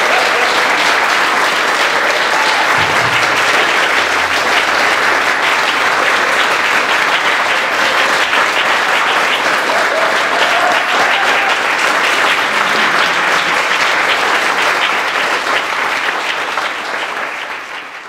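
Audience applauding, a dense steady clapping that fades out near the end.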